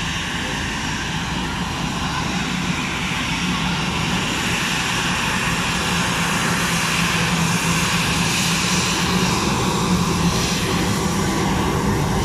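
Twin jet engines of an Airbus A320-family airliner running as it rolls along the runway: a steady hum over a broad hiss, growing slowly louder as the plane comes closer.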